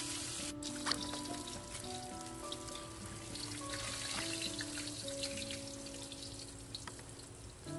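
Hot cooking oil sizzling and crackling around a whole pompano frying in a wok, the crackle now sparse and fine: the sign that the underside is cooked and the fish is ready to turn. Soft background music with held notes plays underneath.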